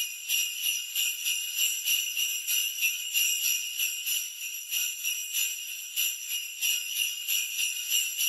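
Jingle bells (sleigh bells) shaken in a steady rhythm, a bright metallic jingling.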